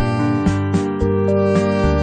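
Instrumental background music with a steady beat and sustained notes over a low bass line.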